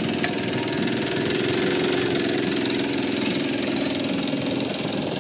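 Single-cylinder diesel engine of a Kubota two-wheel walking tractor running steadily under load as the tractor works a dirt and gravel pile, getting a little louder about one to two seconds in.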